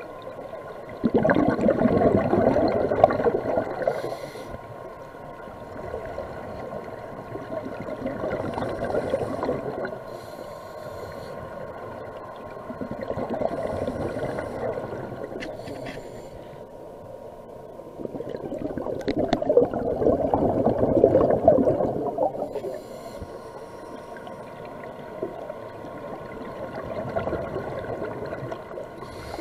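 A scuba diver breathing through a regulator underwater, in slow cycles about every six seconds: a short hiss on the inhale, then a rushing, bubbling exhale. Two of the exhales are much louder than the rest.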